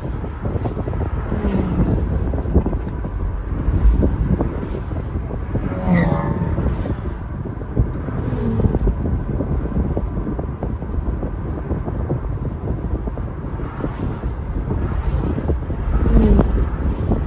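Porsche 718 Boxster driving on the road. Engine and road rumble run under wind buffeting the microphone, and the engine pitch rises and falls a few times, most clearly about six seconds in.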